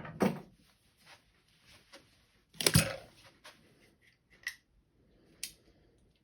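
Handling noise of a lever padlock and lock-picking tools: a few knocks and clicks of metal on a hard surface, the loudest a clunk about two and a half seconds in, then two small sharp clicks near the end.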